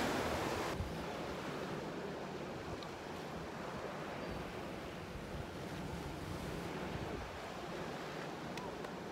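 Ocean surf breaking and washing over a rocky shoreline, a steady rushing noise. It is louder for the first moment, then drops suddenly to a softer, even wash.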